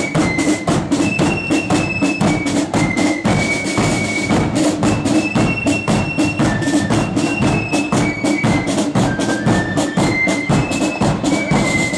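Blood-and-thunder marching flute band playing: a high flute melody in held, stepping notes over rapid side-drum strokes and bass drum.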